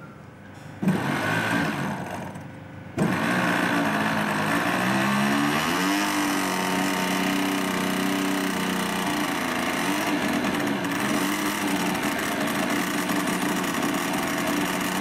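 Motors of a radio-controlled Short Sunderland flying boat model running on the ground with propellers turning. It comes in suddenly about a second in, dips, then runs steadily from about three seconds in, its pitch climbing a few seconds later and then holding.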